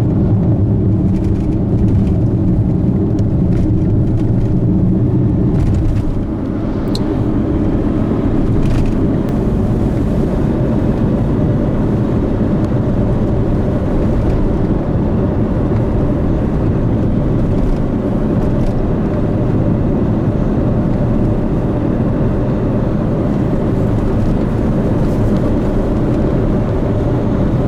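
Steady low rumble of a car driving at highway speed, heard from inside the cabin: engine and tyre noise, dipping slightly for a moment about six seconds in.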